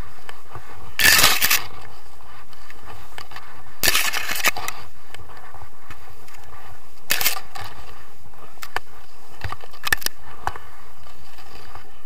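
Paraglider wing fabric crackling and rubbing against the camera in four short loud bursts, over a steady rush of wind noise.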